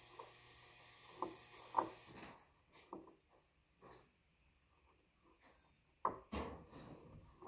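Faint, scattered household knocks and clicks, like wood bumps and handling noises, with a few louder knocks about six seconds in. A faint background hiss stops a little over two seconds in.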